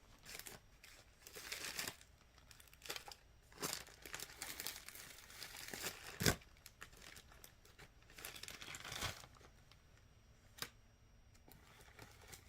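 Small plastic bags of shell pearl beads crinkling and rustling as they are handled, in short irregular spells, with a sharp click about six seconds in.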